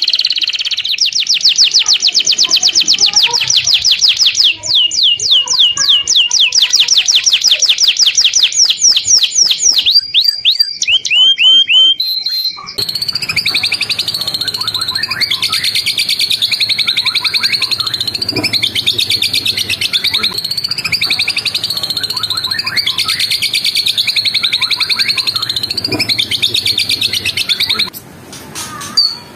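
Recorded songbird calls: a fast run of sharp repeated chirps, about seven a second, that slows near the middle. They are then cut abruptly to a dense, continuous shrill trill that swells and fades about every two seconds.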